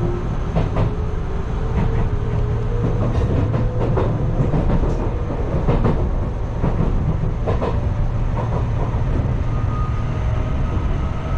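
Enshu Railway electric train running at speed, heard from the front car: a steady low rumble with a thin electric whine that rises over the first few seconds, and irregular clacks from the wheels on the rails.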